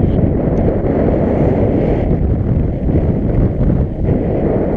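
Strong wind buffeting the microphone, a loud, gusty low rumble.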